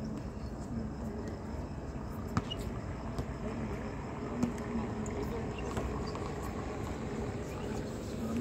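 Steady low outdoor background hum with faint voices here and there. A sharp knock comes about two and a half seconds in, and a smaller one about four and a half seconds in.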